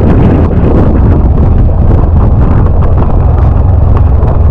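Wind buffeting the microphone on a moving motorbike: a loud, steady low rumble.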